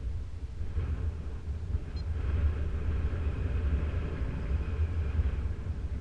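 Wind buffeting the camera microphone in strong wind: a gusty low rumble with a fainter hiss above it.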